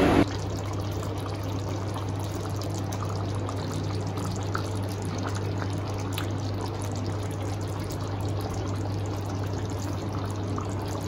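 Fish curry gravy boiling in a kadai, bubbling steadily with small scattered pops, over a steady low hum.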